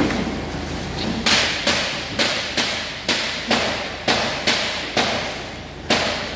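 A rapid, even series of sharp knocks, about ten at roughly two a second, each echoing briefly, over a steady background hum.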